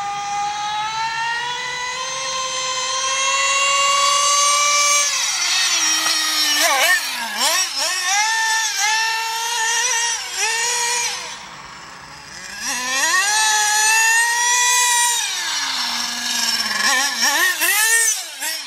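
1:8 scale Carson Specter RC car's nitro engine revving hard with a high-pitched whine. The pitch climbs steadily for about five seconds, then drops and rises in a run of short blips on and off the throttle. It sinks to a low idle about twelve seconds in, revs up again, dips, and rises once more near the end as the car passes close.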